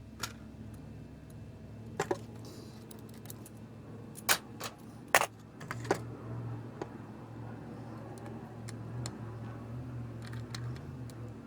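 Scattered light clicks and taps of small metal tools working on a TV tuner's RF connector during soldering, several in the first six seconds, over a low steady hum.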